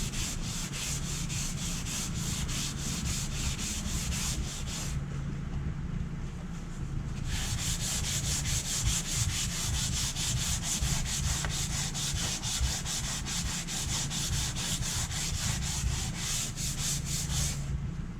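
Rhythmic abrasive rubbing strokes against a wooden wall, about four a second, as grime and mould are worked off the surface by hand. The hissing top of the strokes drops away for a couple of seconds about a third of the way in, then returns.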